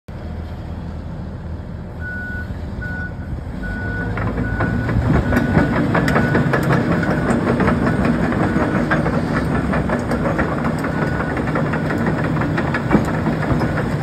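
Hitachi ZX135US excavator's diesel engine running while a warning alarm beeps about twice a second, starting about two seconds in. From about four seconds in it gets louder, with the steel tracks clanking and rattling as the machine travels.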